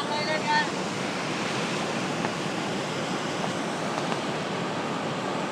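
Steady rush of a waterfall's falling water, with a brief high-pitched call from a person's voice in the first half second.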